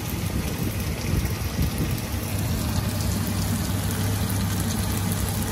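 Steady sizzling of tofu frying in hot oil, with a low steady hum underneath.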